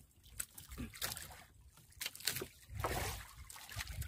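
Water sloshing and lapping against the hull of a small outrigger boat, with scattered light knocks and rubs as a fishing handline is hauled in hand over hand.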